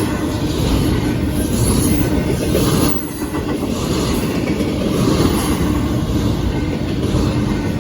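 Union Pacific intermodal freight train rolling past close by, a steady loud rumble of cars and wheels on the rails.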